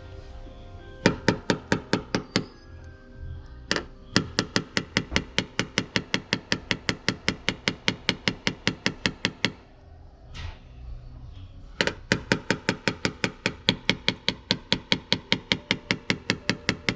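Rapid, even tapping of a paintless dent repair hammer and knockdown tool on a car's sheet-metal panel, about five taps a second in three runs, knocking down high spots while the dent is blended out.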